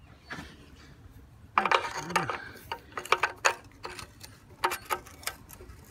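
Ratchet wrench clicking in short irregular runs as it turns the nut welded onto the Farmall A's oil drain plug bolt.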